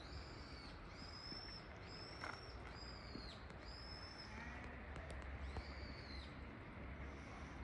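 Faint steady rush of water flowing along a narrow canal channel. Over it a bird calls: five short high notes about a second apart, then one more after a short gap, under a low distant hum.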